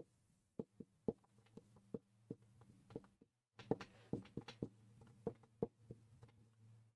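Dry-erase marker writing on a whiteboard: a run of faint, irregular taps and short scratches as letters go down, pausing briefly a little after halfway. A low steady hum lies underneath.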